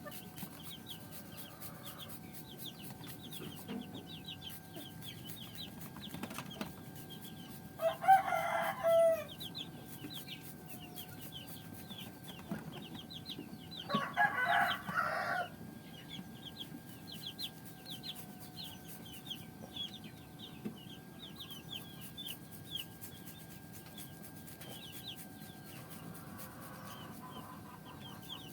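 A rooster crows twice, about eight seconds in and again about six seconds later, each crow lasting about a second and a half. Under them runs a faint, steady chorus of short high chirps and a faint steady hum.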